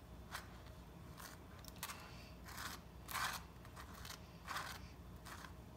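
Table knife spreading whole-grain mustard on a slice of brown bread: a series of short, faint scrapes, about seven strokes, the loudest a little past halfway.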